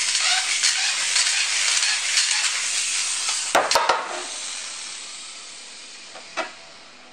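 Infinity Nado 5 spinning top whirring and scraping on its tip across a plastic battle stadium floor, with two or three sharp knocks about three and a half seconds in. After the knocks the scraping fades steadily as the top settles into a stable spin in the middle of the stadium.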